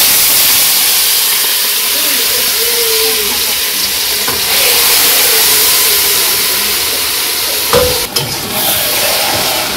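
Marinated chicken pieces going into hot oil in a karahi, sizzling and hissing loudly and steadily. A knock near the end.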